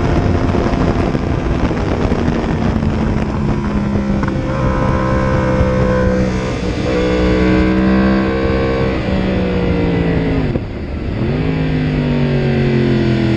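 Yamaha R1 sportbike's crossplane inline-four engine running hard on track, heard from on the bike with wind noise over it at high speed. The engine note falls as the bike slows for a corner, then jumps up sharply at a downshift from fourth to third gear about eleven seconds in, and runs on steadily.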